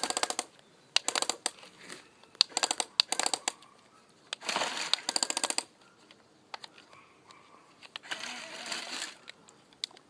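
Toy excavator's small motor and gears clicking in several short bursts of rapid ratcheting as it is made to turn, the turn catching and sticking.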